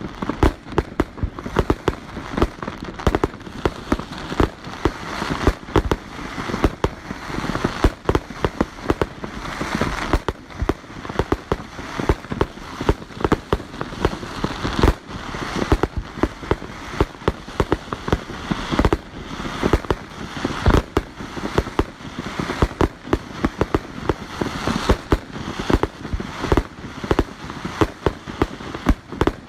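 Fireworks going off in a rapid, continuous barrage of sharp bangs and crackling bursts, several a second, without a break.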